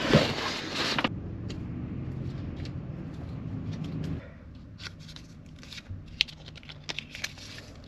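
Rustling, then a run of small clicks and taps from hands working at a car's plastic glove compartment. A low steady hum sits underneath until about four seconds in.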